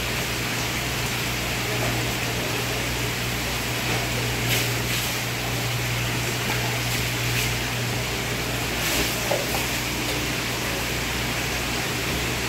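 Fish being cleaned at a wet wooden cutting board: a steady watery hiss over a low hum, with a few short splashes, two close together about four and a half seconds in and another near nine seconds, as water is dashed from a dipper over the board.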